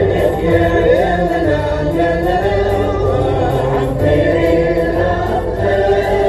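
Andalusian music (Moroccan tarab andalusi) with a chorus of voices singing a flowing melody together over a steady accompaniment.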